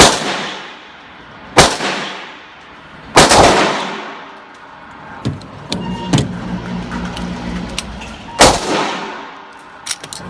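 Four pistol shots, each ringing off the walls of an indoor range: three about a second and a half apart, then a fourth about three seconds before the end. Lighter clicks and knocks come between the third and fourth shots.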